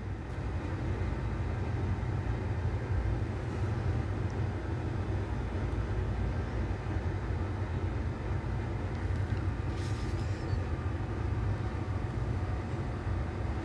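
Steady low rumble, even throughout, with no distinct events.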